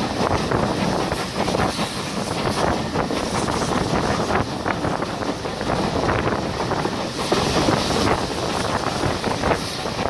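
A moving steam-hauled train heard from an open carriage window: wind rushing past the microphone, with the wheels clattering over the rails.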